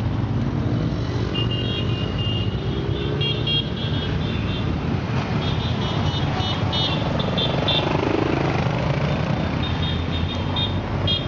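A procession of motorcycles riding slowly past, their engines making a steady mixed drone. Short high-pitched tones come and go over it again and again.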